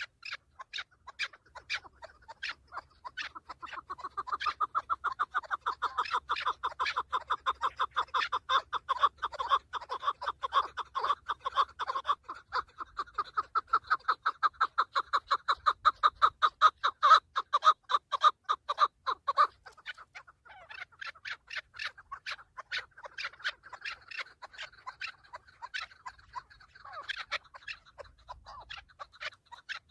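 Chukar partridge calling: a long, quick run of repeated clucking notes, several a second, that grows louder a few seconds in and softens in the last third.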